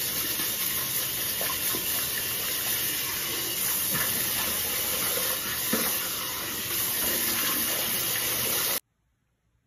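Bathroom tap running steadily into a sink, with a few faint splashes from hands in the water. It cuts off suddenly near the end.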